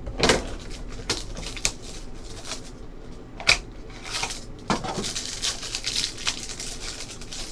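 A cardboard trading-card hobby box being opened by hand and the wrapped pack inside handled: cardboard tearing, a crinkling plastic wrapper, and scattered sharp clicks and snaps, a few of them louder.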